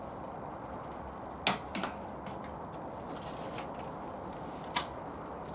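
Three sharp clicks over a steady outdoor hiss: a loud pair about a second and a half in, a quarter of a second apart, and a single one near the end.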